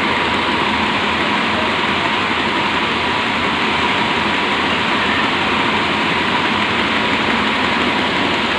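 Yarn winding machine running steadily: a dense, even mechanical whir with a faint steady hum through it.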